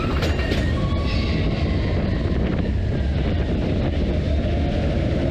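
Expedition Everest steel roller coaster train running along its track, a steady rumble of wheels on rail heard from a seat on board, with wind rushing over the microphone.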